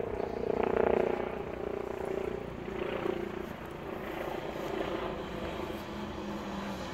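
A steady engine drone with a low hum. It is a little louder in the first second.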